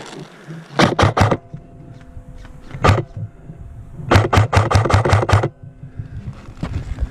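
Airsoft electric rifle firing semi-automatic shots: a quick burst of three about a second in, a single shot, then a fast string of about seven shots at roughly five a second.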